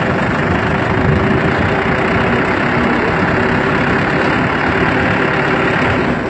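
Small diesel farm tractor's engine running steadily as the tractor drives forward in first gear, high range, with no load, heard close up from the driver's seat.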